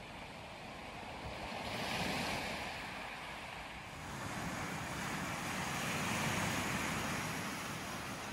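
Sea waves breaking and washing over a rocky shore and shingle beach, the surf swelling about two seconds in and again, longer, toward the end.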